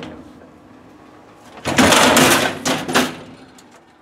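Loose spare parts of a vending machine, such as column dividers, rattling and scraping as they are handled, for about a second and a half near the middle, followed by a few light clicks.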